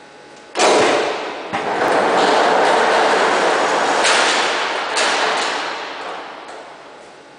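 Overhead rail-mounted shop unit being rolled away along its ceiling track: a loud rolling rumble that starts suddenly about half a second in, swells again a second later and fades out slowly over several seconds.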